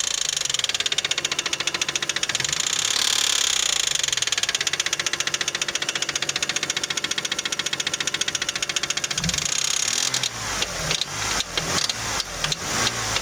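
Toyota 1MZ-FE 3.0 L V6 running with a fast, steady knock, a knock that appeared at the first start after the spark plugs were changed, which the owner suspects lies in the VVT-i coupling. About ten seconds in, the running changes to slower, separate, louder pulses.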